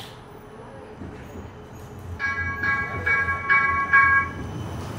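A tram's warning bell rings about five times in quick succession, about two strikes a second, over the low rumble of a tram running on its rails.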